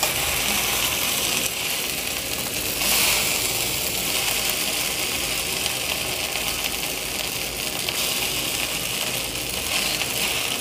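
Vegetable chow mein noodles sizzling in a hot kadhai as a metal spatula tosses them, scraping and clinking against the pan.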